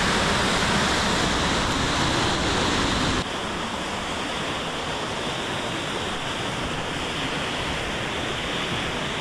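Waterfall pouring, a loud steady rush of falling water. About three seconds in, it suddenly becomes quieter and duller.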